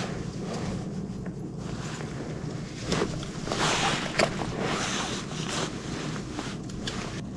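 Metal pliers clicking and scraping as a jighead hook is worked free from a flounder's mouth, with rustling of gloves and jacket, over a steady low rumble. The clicks and rustling bunch together in the middle of the stretch.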